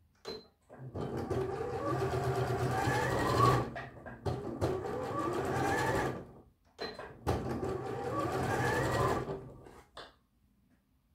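Bernette b38 computerized sewing machine stitching fabric in three runs separated by short pauses, its motor whine rising in pitch as it speeds up within each run. Short clicks come between the runs.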